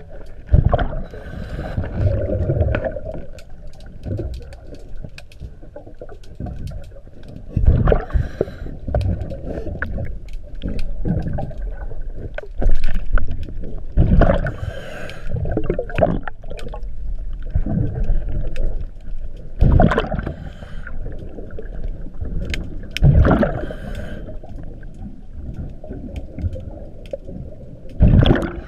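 Underwater sound of a diver's breathing regulator: a gush of exhaled bubbles every few seconds over a continuous low rumble.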